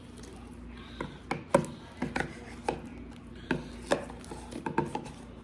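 Slime being worked by hand, giving an irregular run of sharp clicks and pops, about a dozen, from about a second in until near the end.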